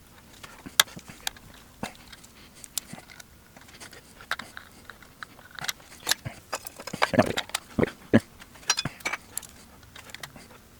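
Metal mounting tabs on a timer light switch being bent backwards: irregular sharp clicks and short scrapes of metal handling, with a cluster of louder scraping about seven seconds in.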